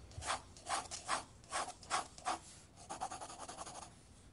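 Rhythmic swishing, scratchy strokes about two a second, a breathy percussion passage of the background music with no melody, turning into a quicker scratchy rasp about three seconds in.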